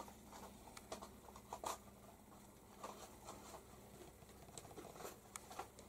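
Near silence: room tone with a few faint, scattered light taps and clicks.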